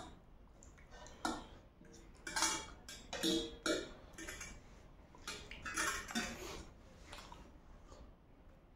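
Metal forks clinking and scraping against metal plates, in scattered short strokes, with noodles being slurped and eaten.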